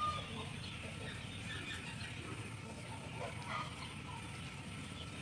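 Chickens clucking now and then, in short scattered calls over a steady low background noise.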